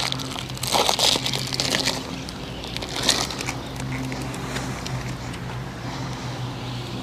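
A steady low engine-like hum, with irregular crackling and rustling handling noises over the first few seconds.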